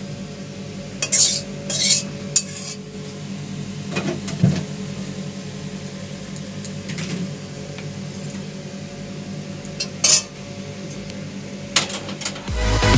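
A metal ladle clinking and scraping against dishes as curry is served: a few scattered, separate clinks over a steady low hum. Electronic dance music starts just before the end.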